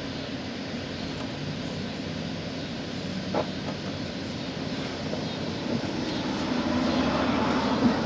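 Steady background rumble of a passing vehicle, growing slowly louder through the second half, with one brief sharp sound about three seconds in.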